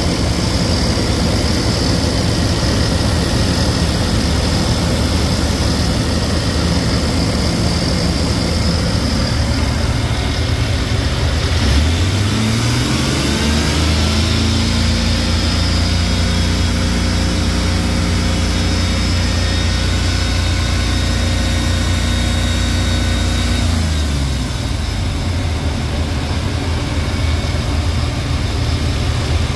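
A 1993 GM 4.3-litre V6 engine running at idle, then revved up about twelve seconds in. It holds a steady higher speed for about ten seconds, then drops back to idle near the end.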